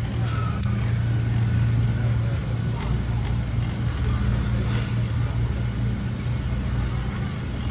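Steady low hum and rumble of a big warehouse store's interior, with a shopping cart rolling over the concrete floor and a few faint ticks.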